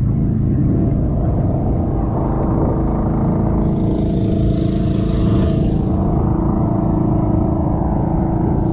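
Small engine aboard an outrigger fishing boat running with a steady drone. A rushing hiss rises over it about three and a half seconds in and lasts a couple of seconds.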